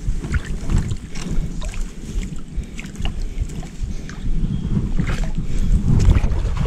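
Shallow muddy water sloshing and splashing around a wading angler's legs and hands as he reaches in to free a snagged fish, over a low rumble of wind and clothing rubbing on a body-worn microphone. The splashing grows louder in the second half.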